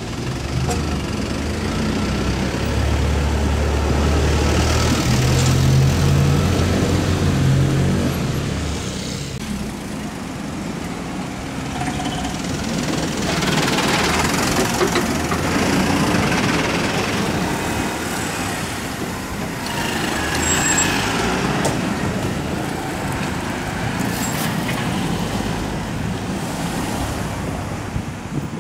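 Road traffic: a large vehicle's engine runs with a low steady hum for the first several seconds, then vehicles pass by in swells of tyre and engine noise.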